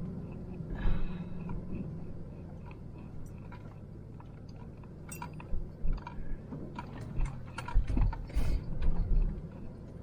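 Van engine idling with a steady low hum, while scattered clicks and knocks come and go, most of them in the second half.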